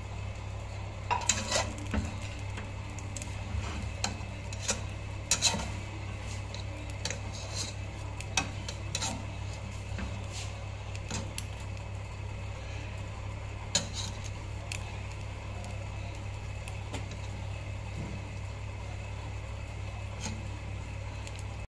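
Metal slotted spatula scraping and clinking against a non-stick cooking pot as biryani rice is turned and mixed. The clinks come in a cluster in the first few seconds and then more sparsely, over a steady low hum.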